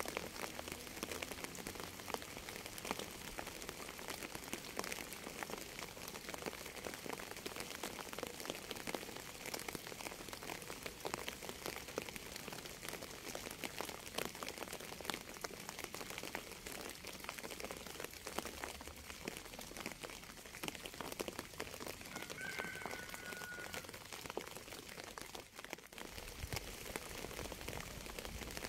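Steady rain with many distinct drop hits. A brief faint tone sounds about three-quarters of the way in, and a low rumble comes in near the end.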